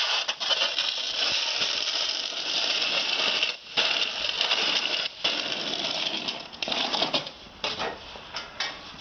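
Snow shovel blade scraping and rattling along a snowy paved path in long pushes, with two brief breaks, then shorter separate strokes near the end.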